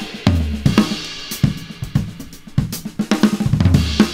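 Recorded drum kit playing a groove, heard through a single overhead microphone: snare, bass drum, hi-hat and cymbal hits with cymbal wash. A low-end EQ boost around 110–130 Hz is being dialled in to fatten the snare and toms.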